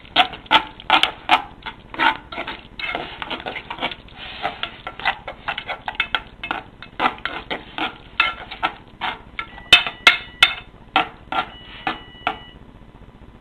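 A spoon stirring pumpkin sauce in a saucepan, knocking and clinking against the pan in quick, irregular strokes. Two short steady beeps sound near the end.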